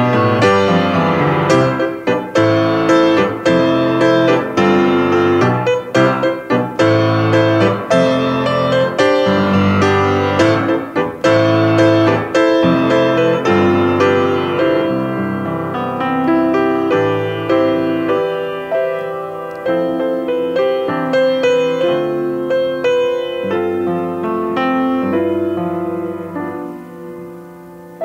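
Solo grand piano playing a slow, tender piece. Full and loud at first, it grows softer from about halfway and dies away near the end.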